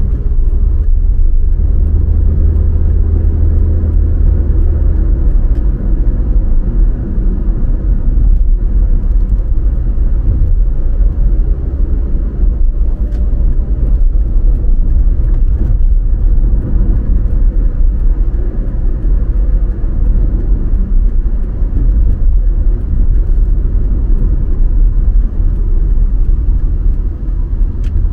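A car driving on city roads: a steady low rumble of engine and road noise, with a deeper hum for the first few seconds.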